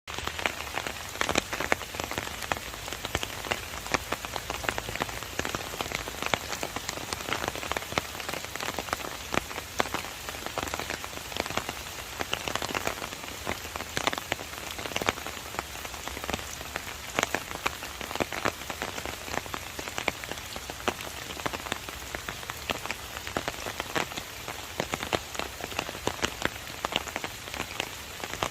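Steady rain falling, with many separate drops striking a surface in quick, irregular ticks over an even hiss.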